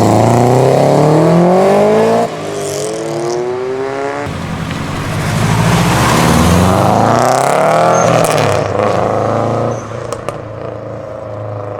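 Subaru Impreza flat-four boxer engine accelerating hard, its revs climbing, with a sudden drop about two seconds in and another long climb after it. Near ten seconds the sound falls away, with a few sharp cracks, to a lower steady engine note.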